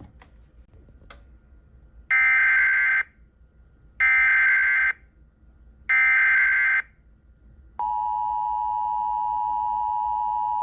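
Emergency Alert System SAME header: three bursts of data tones, each just under a second and about two seconds apart. About a second after the last burst comes the EAS attention signal, a steady two-tone alert tone lasting about three seconds. Together they mark the start of a broadcast emergency alert, here a severe thunderstorm warning.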